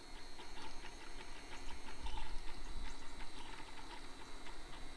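Printrbot Simple Metal 3D printer printing a first layer, its stepper-driven print head moving with rapid, irregular ticking over a low rumble.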